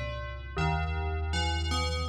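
Slow keyboard music: held synthesizer-like chords over a steady low bass note, with a new chord coming in about half a second in and another shortly past the middle.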